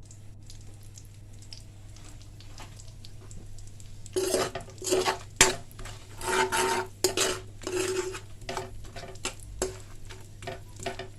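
A metal spoon stirring nuts and whole spices as they roast in ghee in a pan, scraping and clinking against the pan in irregular strokes that start about four seconds in.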